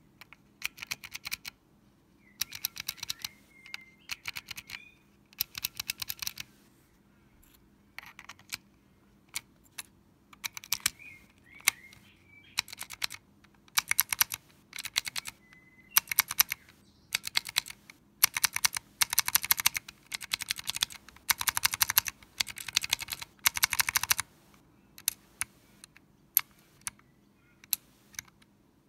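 Keyboard with vintage Cherry MX Pale Blue clicky switches being typed on in quick runs of sharp clicks, with short pauses between runs. Faint bird chirps can be heard now and then behind the typing.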